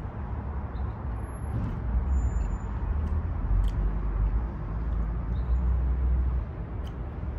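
Low rumble of road traffic that swells for a few seconds and then eases, with a few faint clicks from food being handled on a tray.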